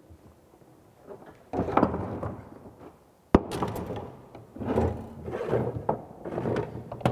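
Tools and fittings being handled and set down on a wooden workbench: irregular knocks, clatter and rustling, with one sharp click about halfway through.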